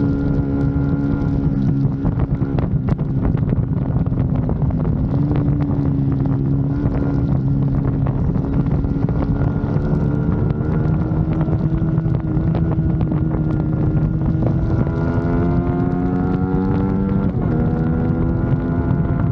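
Motorcycle engine running under way, its note rising and falling with the throttle and jumping up suddenly near the end as it shifts down a gear, with wind buffeting the microphone.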